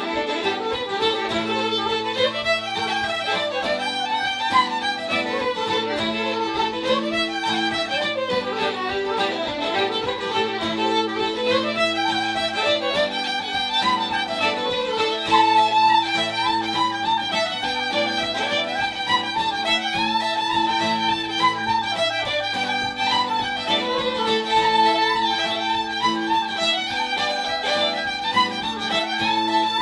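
Irish traditional tune played briskly on two fiddles, a woodwind and acoustic guitar, with quick running melody notes.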